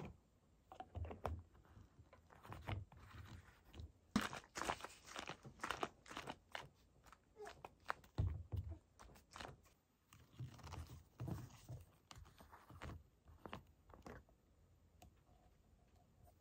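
Irregular series of short crunches, clicks and soft knocks, thinning out near the end.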